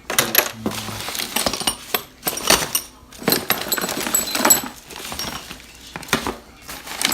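Irregular metallic clinks and clatter, some with a brief high ring, as hydraulic valve lifters are handled and set down.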